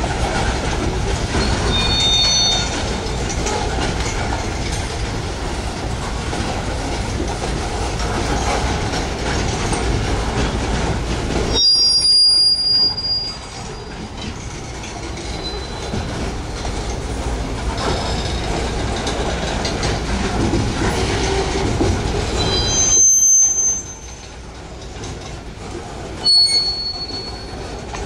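Freight train cars rolling past: a steady rumble of steel wheels on rail, broken by brief high-pitched wheel squeals about four times.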